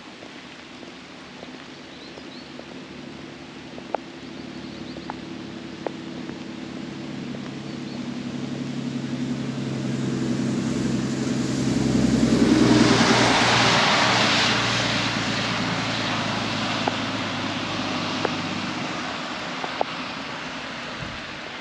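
A motor vehicle approaching, passing close by about twelve seconds in, and fading away, its engine hum and tyre noise swelling and then dying down.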